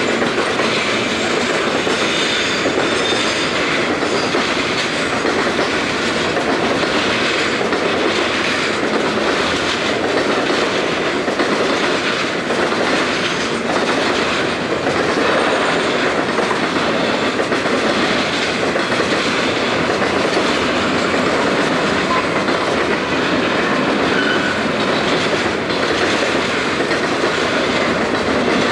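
Freight cars rolling past at a steady speed, their steel wheels clacking rhythmically on the rails.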